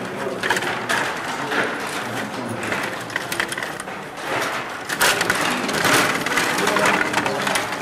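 Stiga Play Off rod hockey game in play: rapid, irregular clicking and clattering of the metal control rods and plastic players hitting the puck, louder from about five seconds in.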